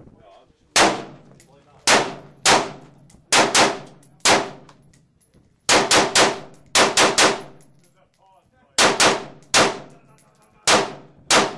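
AR-15 carbine fired rapidly in semi-automatic: about twenty sharp shots, some single and others in quick strings of two to four, each followed by a short echoing tail.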